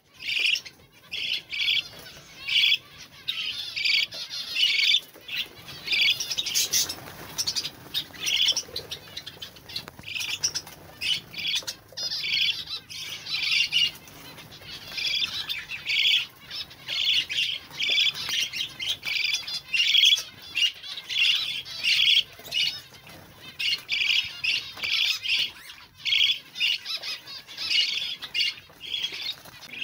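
Budgerigars calling: short, high chirping calls repeated two or three times a second, with brief pauses.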